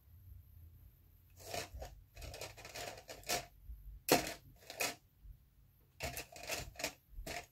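A paintbrush tapping and scratching in an irregular run of short taps and scrapes, with one sharper tap a little past four seconds in.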